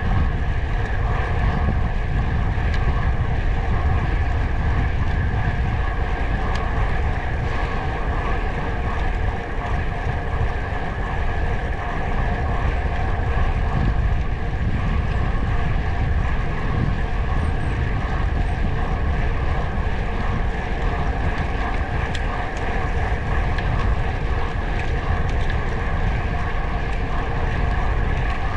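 Steady drone of a vehicle on the move, holding an even pitch throughout, over a heavy low rumble of wind on the microphone.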